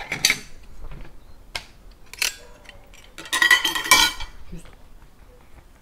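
Kitchen knife and dishes handled on a table: a few sharp knocks, then about a second of metallic clinking and scraping with a ringing edge, about three seconds in.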